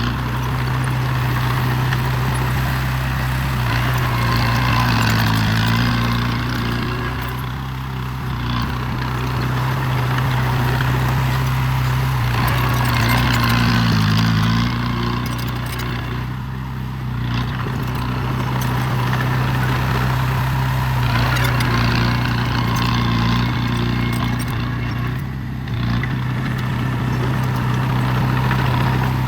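Heavy construction machine's diesel engine running steadily, its pitch dipping and wavering briefly about every nine seconds as it takes on load.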